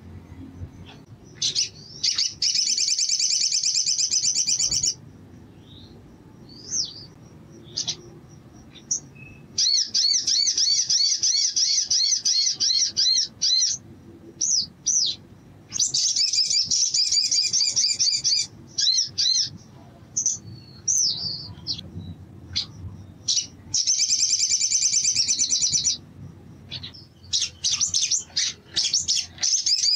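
Male olive-backed sunbird singing: five long, fast, high-pitched trills of a few seconds each, with short sharp chirps in between.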